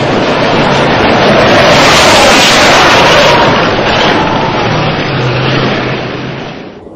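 A tank driving past close by, with engine and tracks. The noise swells to a peak about two to three seconds in, then fades away.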